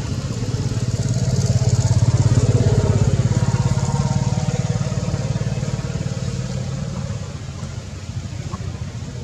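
A motor vehicle's engine running, growing louder over the first couple of seconds and fading away after about seven seconds, as a vehicle going past.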